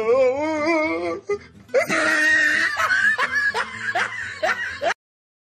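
Music with a voice wavering quickly in pitch, then laughter in quick bursts. The sound cuts off abruptly about five seconds in.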